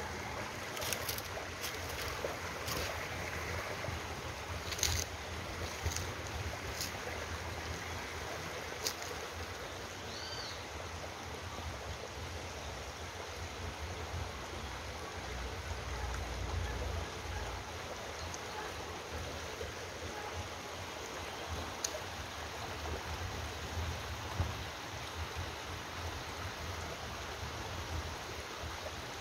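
Steady rushing of a forest stream. A few sharp clicks come in the first nine seconds, and one short high chirp about ten seconds in.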